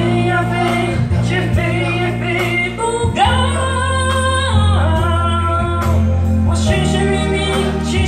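A man sings a pop song live through a handheld microphone over a steady accompaniment, holding long notes in the middle of the phrase.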